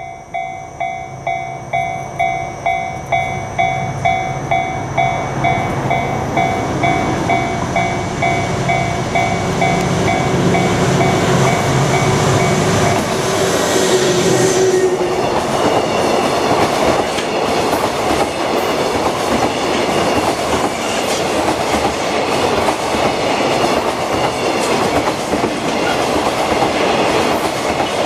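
Level-crossing warning bell ringing about twice a second while a train approaches and grows louder. About fifteen seconds in, the train passes over the crossing and the clatter of its wheels over the rail joints covers the bell.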